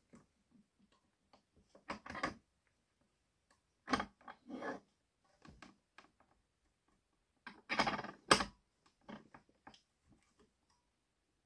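Deer antler in a plastic sleeve being handled and clamped in a bench vise: three short bursts of clattering and clicking, about two, four and eight seconds in, the last the loudest, with faint ticks between.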